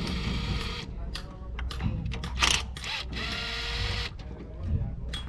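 Cordless drill-driver whirring in two short runs, one at the start and one about three seconds in, as it drives bolts on a diesel engine's valve cover. Metal clicks and clinks fall between the runs.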